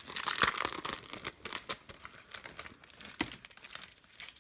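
Paper and plastic stationery packaging rustling and crackling in the hands as a packet of tabs is handled, busiest in the first couple of seconds, then in scattered crackles.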